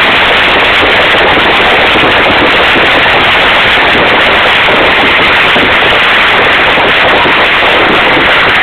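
Fireworks going off in a continuous rapid crackle of pops and bangs with no pause. It is loud enough to overload the phone's microphone.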